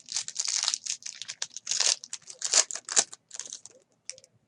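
A plastic trading-card pack wrapper being torn open and crinkled in a series of rustling bursts, with one sharp snap about three seconds in.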